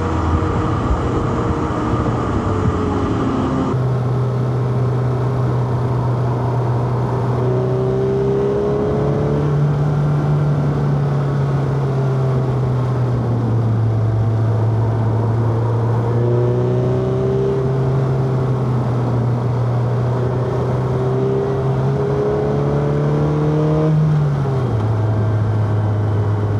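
Four-cylinder car engine under way, its note rising and falling gently with the throttle. The pitch drops sharply about four seconds in and again near the end, like upshifts.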